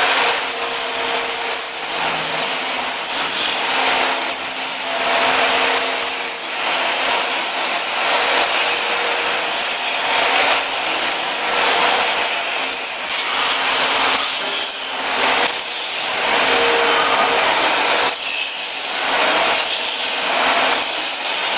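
Workshop machines machining aluminium profiles: a loud, continuous rasping noise with high and middle whines that swells and eases every second or two.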